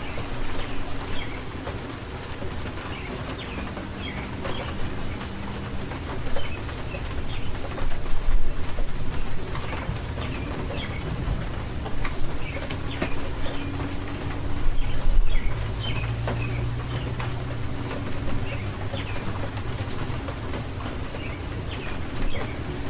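Steady heavy rain falling, with many birds chirping in short calls throughout and some low cooing calls.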